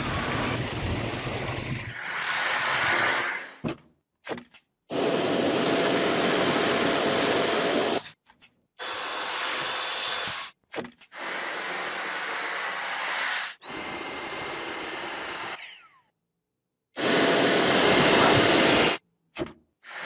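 Dyson cordless stick vacuum running, a rushing suction noise with a thin steady high whine on top. It comes in a string of short stretches that cut in and out abruptly, with brief silent gaps between them.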